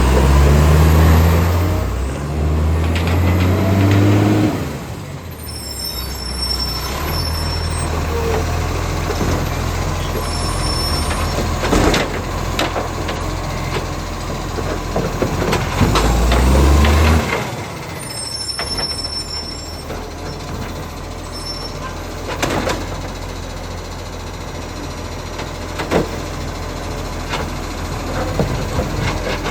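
Diesel engine of an International Acco garbage truck with an exhaust leak, revving up in steps for the first few seconds and again briefly about two-thirds through, running at idle in between. A few sharp knocks sound over it.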